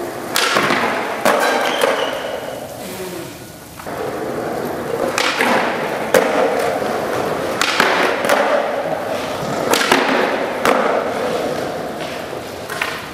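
Skateboard wheels rolling on smooth concrete, broken by several sharp board pops and landing clacks and a grind along a concrete ledge.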